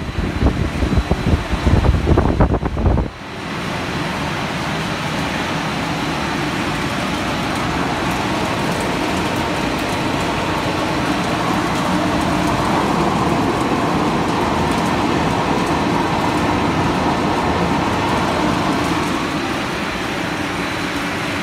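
Snack pellet production-line machinery running with a steady, even mechanical noise. For about the first three seconds a loud, irregular low rumbling sits over it, then cuts off suddenly.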